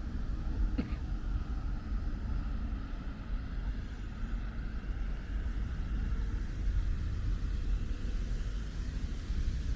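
Outdoor ambience in light rain: a steady low rumble like distant city traffic, with a faint hiss above it and a single tap about a second in.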